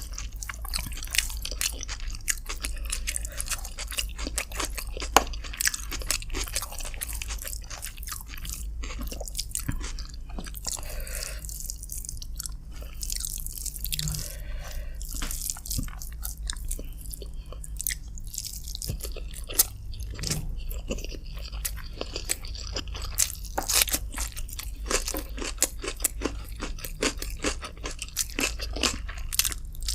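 Close-miked eating sounds: a person chewing and crunching on chicken and rice, with many sharp wet mouth clicks. The eating gets sparser for a few seconds around the middle.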